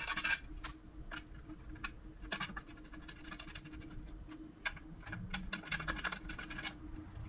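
Light clicks, taps and scratching as threaded leveling feet are screwed by hand into a steel stand base and small metal hardware is picked up from the bench.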